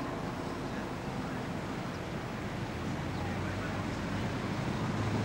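Steady low rumble and hiss of background noise, slowly getting louder.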